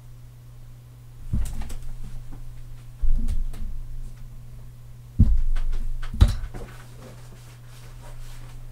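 A few dull knocks and clicks from working a computer mouse and keyboard, over a steady low hum.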